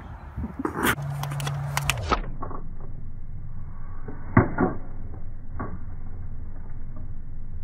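Plastic pump-action toy water gun being pumped: a few muffled plastic clacks, the loudest about four and a half seconds in. Before that, a low hum drops in pitch and dies away about two seconds in.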